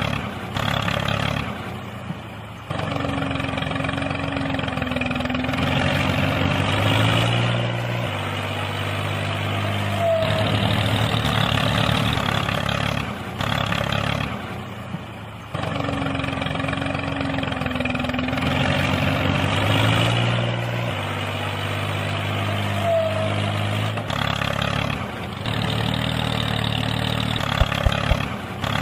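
Tractor engine running with its pitch shifting up and down in steps: a looped recording that repeats about every 13 seconds.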